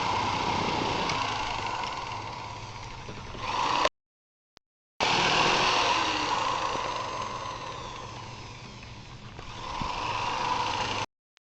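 Power saw running as it cuts lengthwise through PVC pipe to make strips, swelling and easing in level. The sound cuts off abruptly about four seconds in and again near the end.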